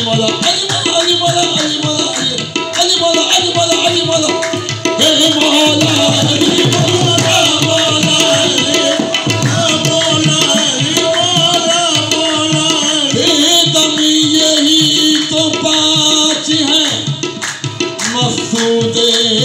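Qawwali music without words: tabla drumming under a sustained melodic accompaniment that runs continuously.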